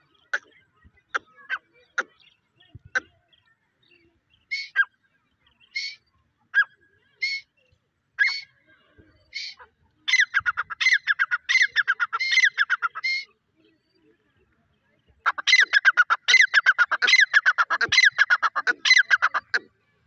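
Grey francolin calling: single sharp notes spaced about a second apart, then quickening into two fast runs of loud, shrill repeated notes, the second run longer.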